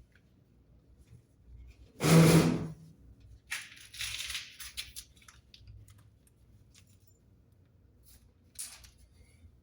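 Handling noise from fitting a chimney pipe: a loud knock with a short low ring about two seconds in, then a second or so of scraping and rustling, and a few light clicks near the end.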